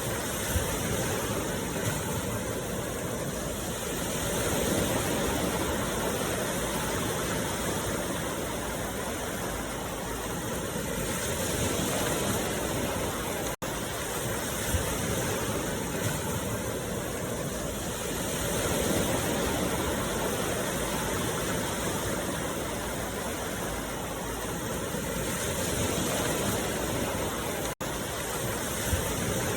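A steady rushing noise that swells and eases about every seven seconds, cutting out for an instant about halfway through and again near the end.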